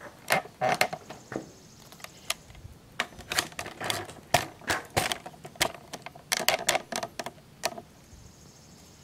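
Irregular handling noise: a quick run of clicks, knocks and clatter as gear is moved and set down, easing off near the end.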